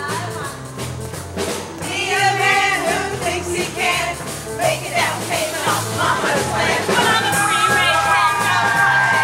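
Upbeat song with a repeating bass line and a steady drum beat. Voices sing short phrases about two seconds in and again from about seven seconds.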